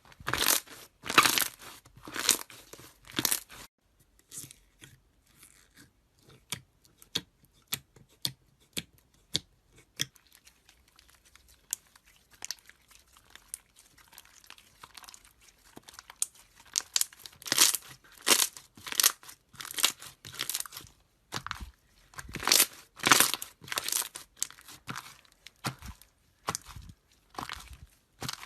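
Slime being squeezed and played with by hand, making crunching, crackling and tearing sounds. The crackles come in dense clusters at the start and again in the second half, with only scattered faint clicks in between.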